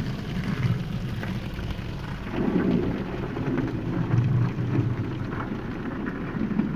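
Automatic car wash spraying water and foam onto a car's windscreen and body, heard from inside the cabin as a steady, muffled rushing that swells a couple of times.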